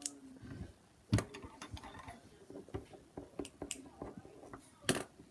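Scattered small clicks and scratchy taps of a pen writing on paper and being handled at a table, with a sharper knock about a second in and another near the end.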